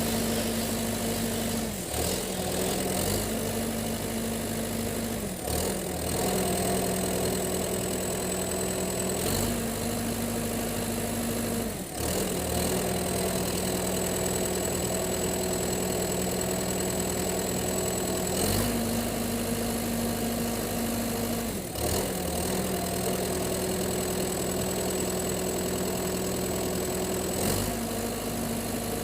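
A machine running steadily, its pitch dropping and rising again in sudden steps several times, with a short click at most of the changes.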